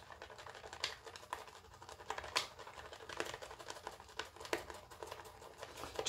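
Badger shaving brush working shaving soap into lather in a bowl with the tips of the knot: a run of irregular soft clicks and crackles from the wet, foamy lather.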